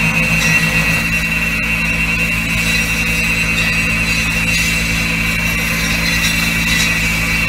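Tractor engine running steadily with a Collard hedger's hydraulically driven cutters spinning and cutting through pomegranate branches, a steady high whine over the engine.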